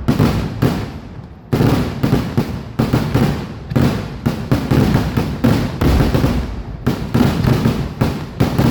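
Vedikettu fireworks going off in a rapid string of loud bangs, about two a second, each trailing off in a deep rumbling echo, with a brief lull about a second in.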